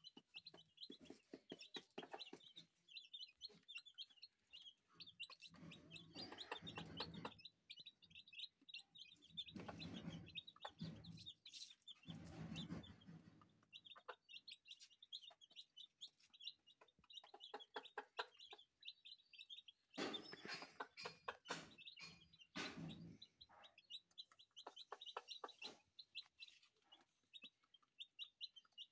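Two-day-old Aseel chicks peeping in a quick, continuous stream of high chirps. A mother hen clucks in several short bouts.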